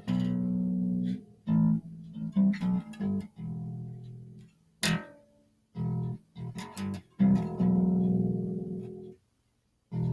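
Guitar music with bass: plucked notes and chords, some held and left to fade, with a brief silent break near the end.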